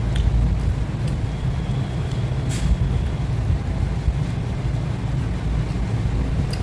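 A steady low background rumble, with a few light clicks from eating by hand off a steel plate.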